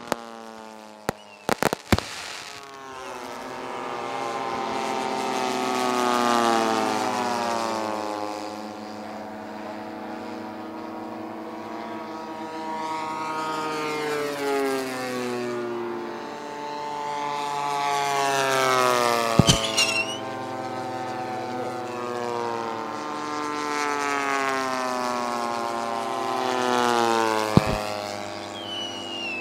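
A few firework bangs at the start, then a radio-controlled model airplane's engine flying repeated passes, its pitch rising and falling as it comes and goes. Two more sharp bangs ring out partway through and near the end.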